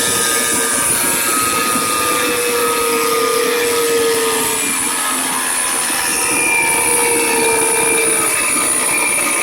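Rebuilt aircraft starter motor running free on the bench: a steady mechanical whine and gear noise whose pitch sags slightly every few seconds. Much of the noise is laid to corrosion inside the electric motor, with the gearing running short of grease.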